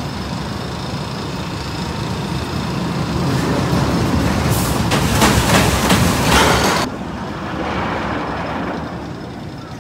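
Steel roller coaster train rumbling along its track. About four and a half seconds in, a louder hissing rush rises and then cuts off abruptly a little before seven seconds.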